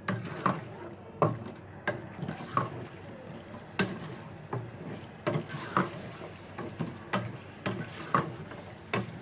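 A spoon stirring mutton with yogurt and spices in a cooking pot, knocking and scraping against the pot in repeated strokes, about one or two a second.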